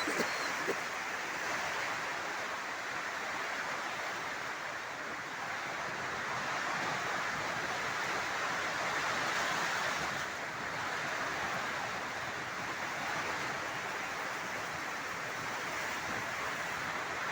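Heavy rain with wind: a steady rushing hiss that swells and eases slowly, with a brief dip about ten seconds in.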